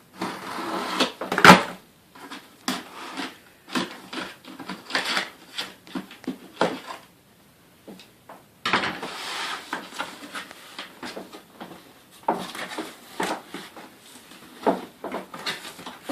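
Vacuum cleaner parts and packaging being handled and taken out of the box: a busy run of clicks, knocks and rustles, with the loudest knock about a second and a half in and a brief lull past the middle.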